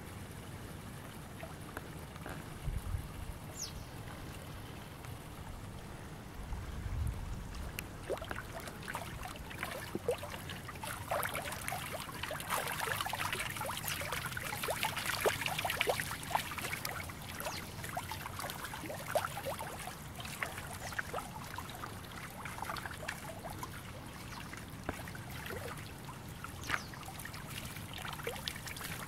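Shallow water trickling and bubbling among stones: a quick patter of small drips and splashes that grows busier several seconds in and thins out again near the end. A couple of dull low bumps come in the first seconds.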